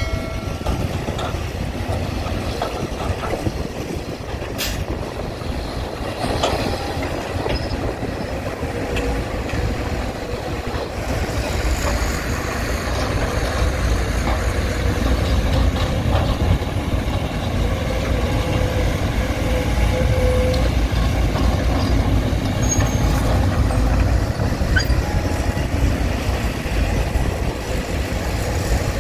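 Heavy diesel machinery, an excavator and dump truck at work, running with a steady low rumble that grows louder about twelve seconds in.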